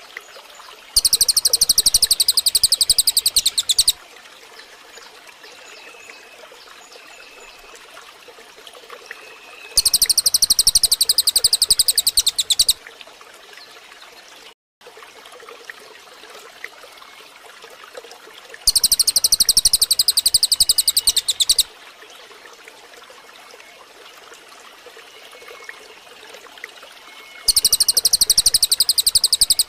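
Recorded songbird calls: a loud, high, rapid run of notes about three seconds long comes four times, roughly every nine seconds. Between the runs there are soft chirps over a faint steady background like running water.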